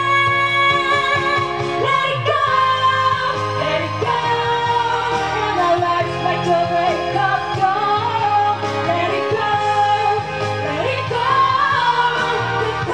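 Two women singing live into handheld microphones over pop accompaniment, their voices amplified through the sound system.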